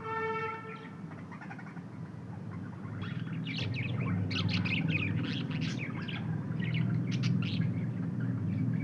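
Pet budgerigars chattering in quick, rapid chirps, starting about three seconds in, over a steady low hum. A brief steady tone sounds right at the start.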